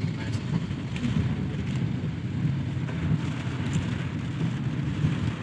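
Steady rumble and hiss of heavy rain, mixed with the running noise of a car.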